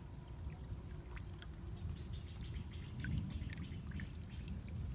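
Water sloshing and splashing around a person wading in a stream and working a wooden pole and her hands through the water, with scattered drips and small splashes that come thicker from about two seconds in.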